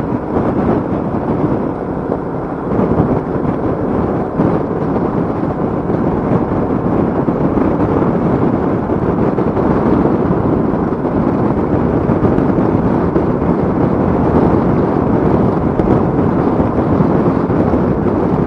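Steady roar of wind buffeting the microphone on a Royal Enfield Meteor 350 motorcycle riding at speed, with road and engine noise mixed in underneath.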